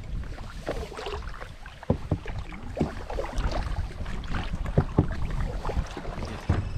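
Canoe paddling: paddles dipping and splashing and water slapping against the hull of a Pakcanoe 150 folding canoe. Sharp knocks come about once a second over a low steady rumble.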